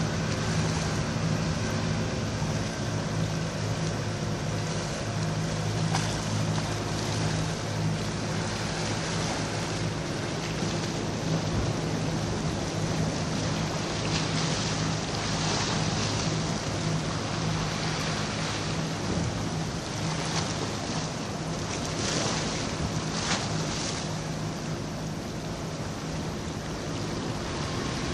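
A boat's engine running steadily with a low hum, under gusting wind on the microphone and the wash of waves.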